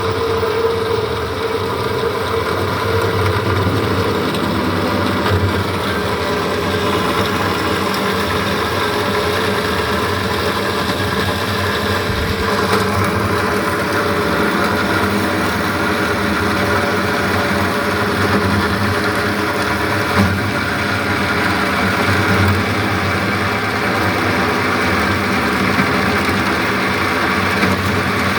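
DoAll bandsaw running steadily: a constant machine hum made of several steady tones.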